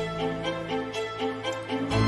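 Background music: a quick repeating melody of short notes over a beat, with a deep bass and a louder mix coming in at the very end.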